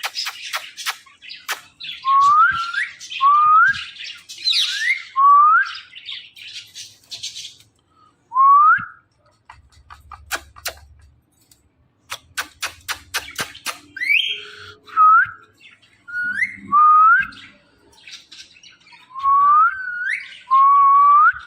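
Ringneck parrot whistling: about ten short whistles, each gliding upward in pitch, with quick runs of sharp clicks in between.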